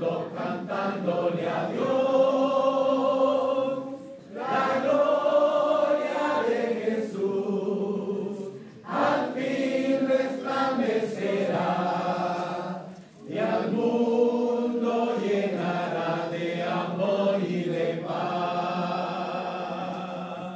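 A church choir singing together unaccompanied, in long phrases separated by short breaks.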